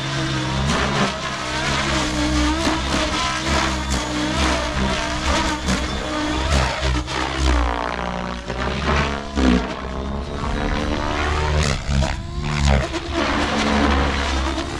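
XLPower Specter 700 V2 electric RC helicopter flying aerobatics: the main rotor and motor drone, with the pitch rising and falling as it swoops and changes attitude. A sweeping, phasing whoosh comes through as it passes lower in the middle.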